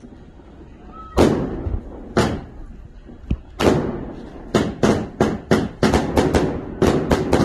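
Aerial fireworks firing in quick succession, each shot a sharp bang with a short ringing tail. At first there are three bangs about a second apart, then from about four and a half seconds in they quicken to a rapid string of about three a second.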